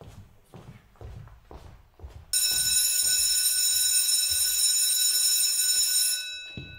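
Electric school bell ringing: a loud, steady, shrill tone that starts suddenly a couple of seconds in, holds for about four seconds, then dies away.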